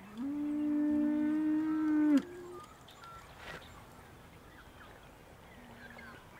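Dairy cow mooing: one long call of about two seconds on a steady pitch, which cuts off sharply.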